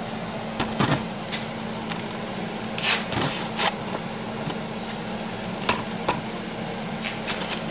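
Scattered light clicks, knocks and rubbing of things being handled, over a steady low hum.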